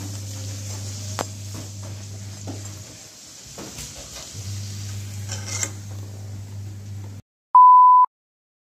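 A puri deep-frying in hot oil in a steel kadai: oil sizzling over a low steady hum, with a few clicks of a slotted spatula against the pan. The sound cuts off suddenly near the end, followed by a single loud, steady, high test-tone beep of about half a second.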